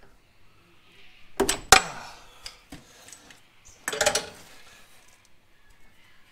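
A long wrench breaking loose the quick-change diff's fill plug, which always seems to tighten itself up: sharp metallic cracks and clicks about a second and a half in, then another short burst of metal clanks about four seconds in, with light ticks between.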